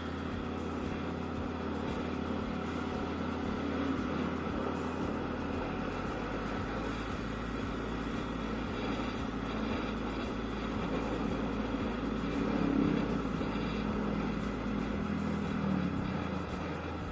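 Yamaha Aerox scooter's single-cylinder engine running while being ridden, with steady wind and road rumble; the engine note swells a little around the middle.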